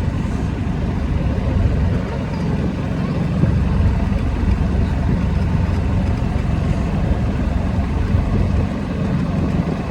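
Steady low rumble of a small vehicle being driven slowly.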